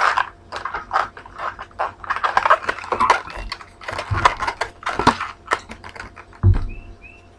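Latex modelling balloon being twisted and handled close to the microphone: rapid, irregular rubbery squeaks and clicks, with a dull thump about six and a half seconds in.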